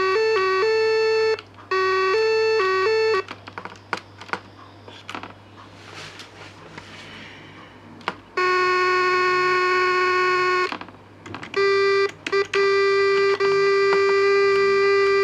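Simple homemade electronic tone generator, switched by the keys of a decoded keyboard switch array, sounding steady buzzy electronic tones. At first it flicks quickly between two close pitches. Then come several seconds of clicking and rustling with no tone, a lower held tone, more clicks, and a slightly higher held tone that cuts out briefly a couple of times.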